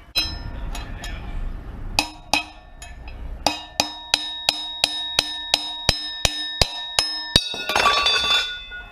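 Hammer striking a punch to drive a worn-out wheel bearing out of a 1987 Suzuki DR200 rear hub: sharp metal-on-metal blows with ringing, settling into a steady run of about three blows a second. A short rattling clatter follows near the end.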